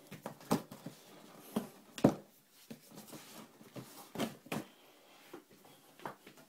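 A cardboard shoebox being handled and opened by hand: a string of separate knocks and rustles as the lid comes off, the loudest about two seconds in.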